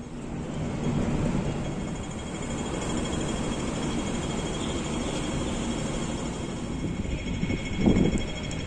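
City street ambience: a steady low rumble of road traffic, with a short louder thump near the end.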